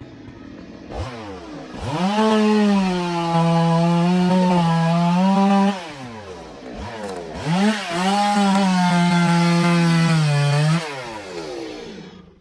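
Stihl two-stroke chainsaw revving up and cutting into a thick tree trunk in two long passes, its engine pitch held down under load. Between the passes it drops briefly toward idle with a quick blip, and it winds down near the end.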